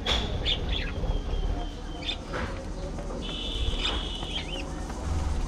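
Budgerigars in a colony aviary chirping and warbling: short high chirps and one call held for about a second, over a steady low rumble.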